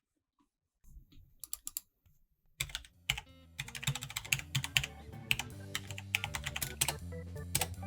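Typing on a gaming keyboard: bursts of quick key clicks starting about a second in, then steady fast typing. Organ-like background music comes in under the typing about a third of the way through.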